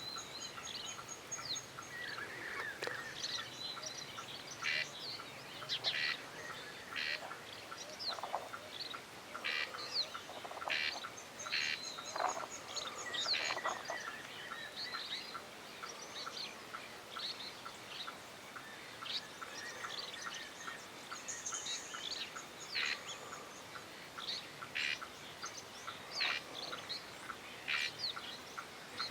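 Songbirds calling: a busy stream of short chirps, quick whistled strokes and brief trills, several overlapping.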